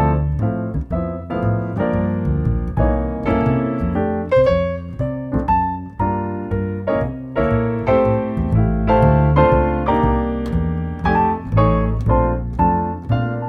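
Background music: piano or electric keyboard playing a steady run of notes over a bass line.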